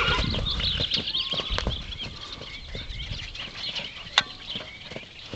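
Hoofbeats of a young Shire filly cantering over dry ground, loud at first and fading over the first couple of seconds as she moves away. A single sharp click about four seconds in.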